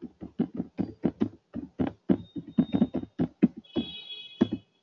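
Steady typing on a computer keyboard: a quick, even run of key clicks, several strokes a second.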